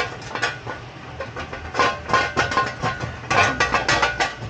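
Front wheel bearing hub assembly being worked loose and pulled out of the steering knuckle: a string of metal knocks and clinks, some ringing briefly, busiest in the second half. The hub is already loose and comes out without an air hammer.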